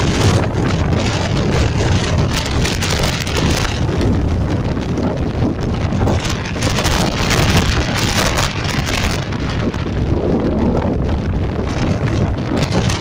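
Strong wind buffeting the microphone: a loud, steady rush of noise, heaviest in the low end, swelling and easing a little with the gusts.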